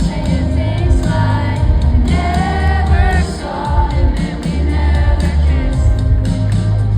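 Live pop concert music: a female lead vocal sings over a band with a heavy, steady bass line.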